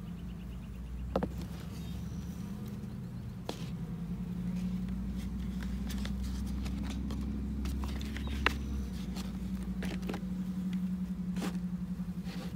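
Steady buzzing hum of a honeybee colony at an open hive, with scattered knocks and scrapes from the wooden bottom-board tray and a paper sheet being handled. The sharpest knocks come about a second in and again about eight and a half seconds in.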